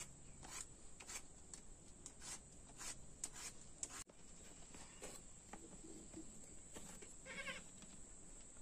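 Soft crisp slicing strokes as a green gourd is cut against a foot-held curved kitchen blade (boti), about one stroke every half second. A short wavering animal call comes about seven and a half seconds in.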